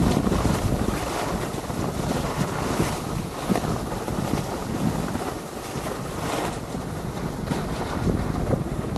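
Wind rushing over an action camera's microphone while sliding down a groomed ski run at about 15 mph, mixed with the hiss and scrape of sliding on packed snow. There are a few sharper scrapes about three and six and a half seconds in.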